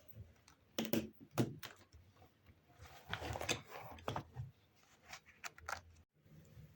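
Small objects being handled: a few sharp clicks and knocks, then a rustle a little past halfway, and a few light taps near the end.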